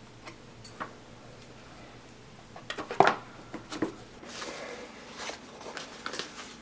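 Hands handling a cardboard box and its packing: scattered light taps and knocks of cardboard, the sharpest about three seconds in, and soft rustling of paper and foam packing sheet in the second half.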